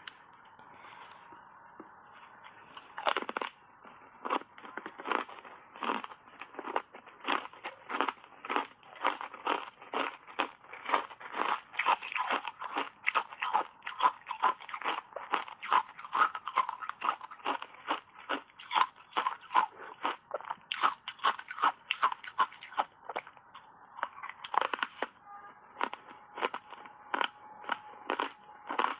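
Hard ice chips coated in matcha powder being bitten and chewed: a rapid run of sharp crunches, about two a second, starting about three seconds in, with a brief pause near the end.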